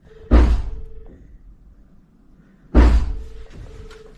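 Two loud, heavy bangs about two and a half seconds apart, each dying away: a man going off his head, punching the walls.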